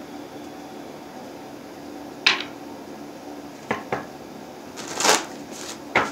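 A deck of cards being handled: a sharp tap a little over two seconds in, a couple of lighter clicks, and a short rustle of shuffling about five seconds in.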